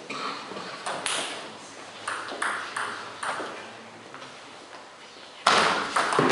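Celluloid table tennis ball in a rally, a string of sharp clicks as it strikes the rackets and bounces on the table. About five and a half seconds in, a sudden loud burst of noise takes over.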